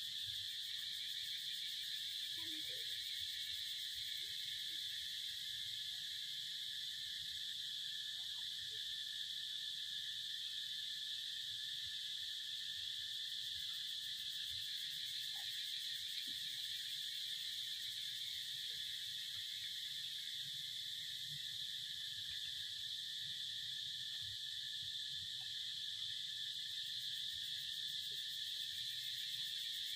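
Steady chorus of insects: a continuous high-pitched drone that holds at an even level throughout.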